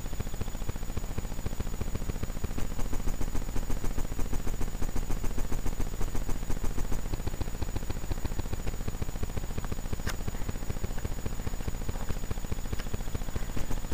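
Rapid, steady crackling static with a faint high whine: noise from a small camera's microphone as it is carried. The crackle pulses louder from a few seconds in to about halfway.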